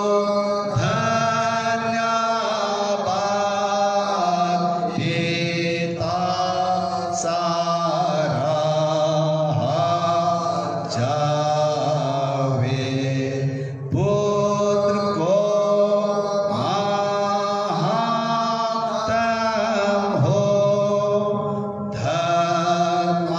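A man singing a slow hymn in long held notes that step from pitch to pitch.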